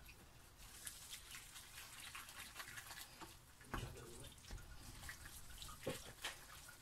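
Faint wet squelching and clicking of tagliatelle being stirred into a thick creamy sauce in a frying pan with a wooden spoon, with a couple of light knocks.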